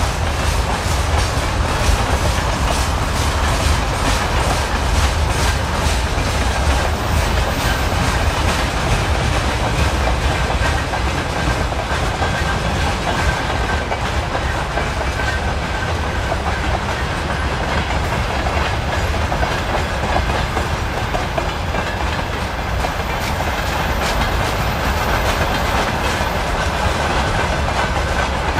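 Freight train wagons, grain hoppers giving way to tank cars, rolling steadily past: a continuous rumble of wheels with rhythmic clickety-clack over the rail joints. A faint thin wheel squeal runs through the middle stretch.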